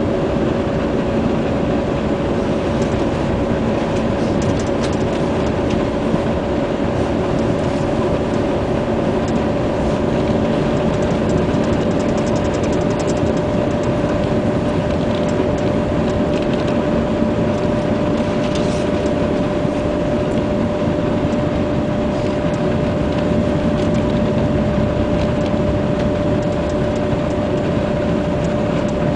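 Steady running noise of a moving passenger train heard from inside the carriage, a constant rumble with a steady hum.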